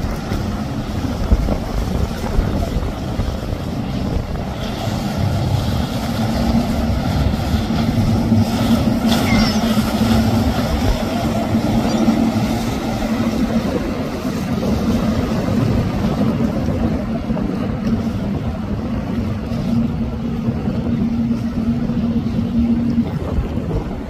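Motorboat engines running at speed, a steady drone over rushing water spray, with wind noise on the microphone.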